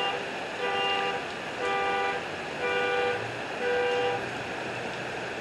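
A car alarm honking its horn in pulses about once a second, then stopping a little after four seconds in, over a steady hiss of rain.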